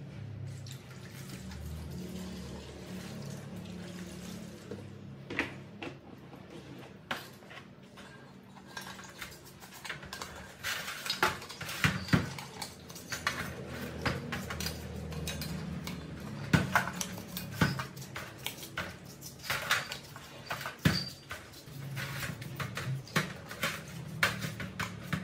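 Cleaning liquid poured from a plastic jug into a steel tray, then an aluminium engine crankcase washed in it: liquid sloshing, with many clanks and clicks of the metal casting knocking against the steel tray from about a third of the way in.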